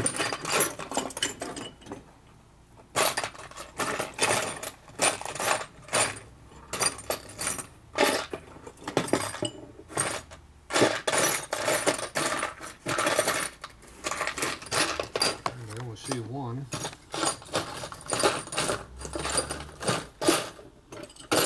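Steel transmission parts clinking and rattling as they are handled and set down, many separate sharp metallic clicks with short pauses between them.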